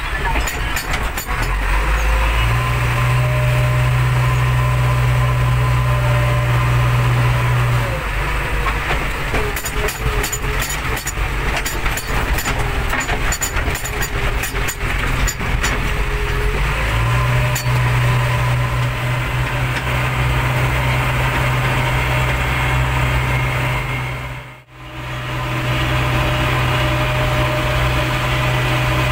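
Backhoe loader's diesel engine running steadily as the machine travels, heard from inside the cab. A steady low drone comes and goes, with a stretch of light rattling clicks in the middle.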